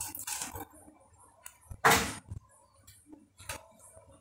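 Plastic spice sachet crinkling as turmeric powder is shaken and tapped out of it onto raw chicken pieces: a few short rustles and light clicks, the loudest about two seconds in.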